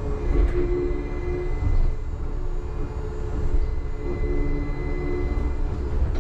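Uijeongbu Light Rail's rubber-tyred automated train running along its concrete guideway, heard from inside the front of the car: a steady low rumble from the running gear with a humming motor tone and a faint high whine.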